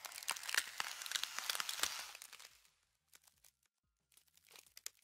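Crackling, crunching sound effect of ice freezing over, a dense run of tiny cracks for about two and a half seconds, then a few faint scattered clicks near the end.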